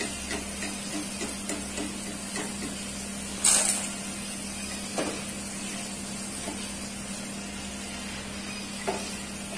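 Chickpeas deep-frying in hot oil in a kadhai, a steady sizzle, with a few sharp clinks of a wire skimmer against the pan, the loudest about three and a half seconds in.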